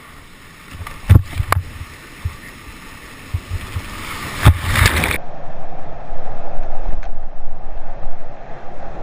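Rushing water and wind noise with a few sharp knocks in the first half. It cuts abruptly to a steady, duller rushing sound.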